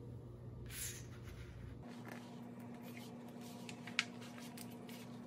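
Quiet handling of a vinyl decal sheet on its paper backing: a short swish of the sheet about a second in, faint rustles and small clicks, and one sharp tap near the end.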